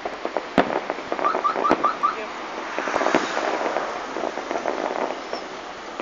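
A fireworks salute going off: a quick run of sharp bangs and pops in the first two seconds, then a denser stretch of continuous crackle from about three seconds in that thins out near the end.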